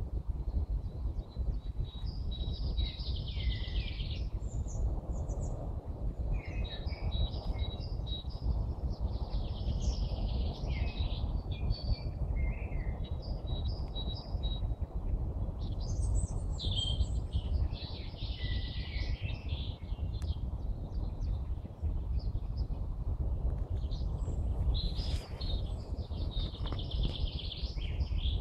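Songbirds singing in spring, with short song phrases of one to three seconds repeated every few seconds over a steady low rumble.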